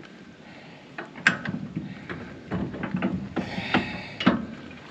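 Irregular metal clunks and clatter as a winch mount's steel shank is worked and wiggled in a truck's hitch receiver, with the loudest knock near the end.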